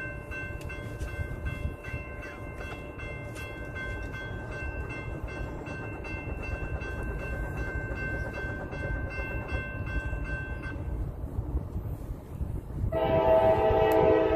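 An approaching train, heard as a low rumble, with a high steady ringing and quick regular ticks that stop about eleven seconds in. Near the end the locomotive's horn starts, loud and steady.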